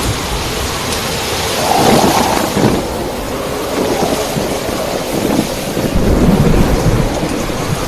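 Cyclone-force wind gusting loudly with heavy rain, with a stronger gust about two seconds in.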